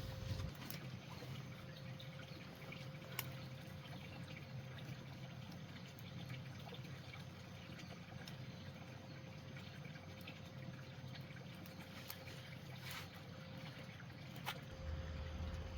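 Water trickling steadily, with a few light clicks or knocks.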